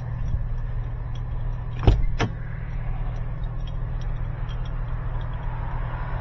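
Diesel semi-truck engine idling steadily in the background. About two seconds in, a truck cab door latch clicks twice as the door is pulled open, with keys jangling.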